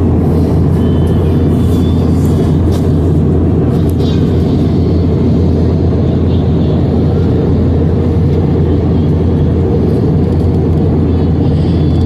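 Jet airliner cabin noise in flight: a loud, steady low rumble of engines and airflow.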